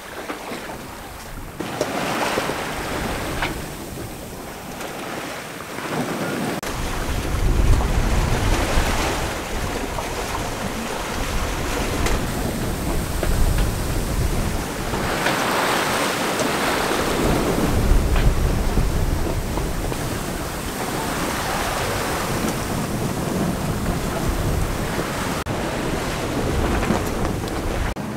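Sea water rushing and washing past the hull of a sailboat under way, swelling and fading every few seconds, with wind buffeting the microphone from about six seconds in.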